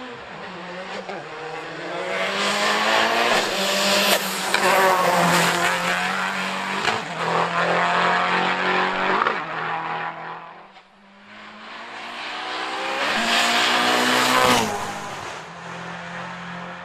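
Race car engine at full throttle on a hill climb, its pitch climbing and dropping back at each upshift. It gets loud twice, about two seconds in and again near the end, with a quieter stretch between.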